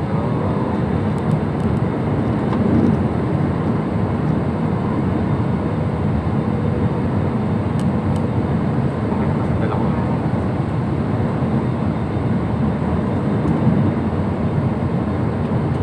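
Steady airliner cabin noise inside an Airbus jet on final approach: the wing-mounted jet engines and the airflow around the fuselage, with the landing gear down, make an even low rumble and hiss that holds at one level throughout.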